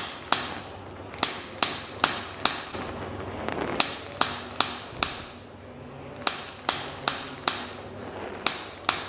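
Rhythmic sharp strikes, about two and a half a second, in runs of four to six with short pauses between the runs.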